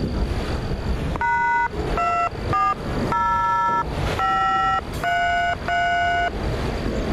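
Autorack freight train rolling past with a steady low rumble. Over it come seven short beeping tones, each about half a second long, stepping between different pitches; their source is unclear.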